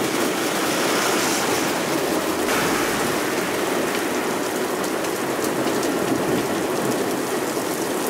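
Torrential rain pouring down onto a road and pavement, a steady dense hiss of a thunderstorm downpour.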